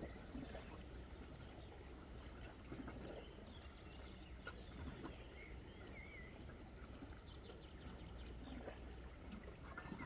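Faint seaside ambience: a steady low hum with small splashes and clicks of water lapping on rocks, and a faint bird chirp about six seconds in.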